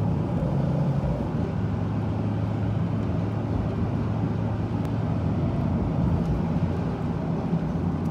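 Car cabin noise while driving: a steady low rumble of engine and tyres on the road, with a steady low hum.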